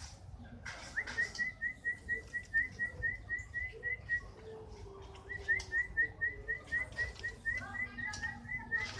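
Canary singing a run of short, upward-flicking whistled notes at about four a second. It pauses briefly midway, then resumes with the same repeated note.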